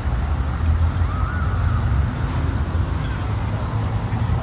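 Steady low rumble of outdoor urban background noise, with a faint short high whine about a second in.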